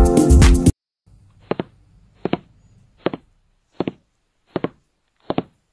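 Electronic dance music that cuts off suddenly under a second in, followed by a steady run of light knocks, about one every three quarters of a second, each a quick double tap.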